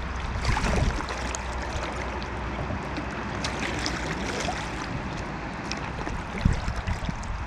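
Fast river current rushing and gurgling around a small boat, with scattered small splashes and drips of water.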